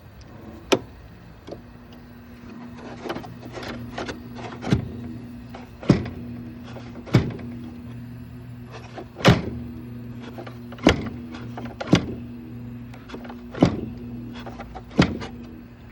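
1970s Carrier 5200 BTU window air conditioner humming steadily just after its thermal overload has tripped, with about nine sharp metallic clicks or knocks at irregular intervals of one to two seconds.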